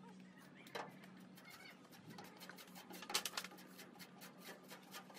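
Paintbrush strokes scratching wet paint onto a rusty steel car panel, a run of short strokes loudest about three seconds in, over faint bird calls and a steady low hum.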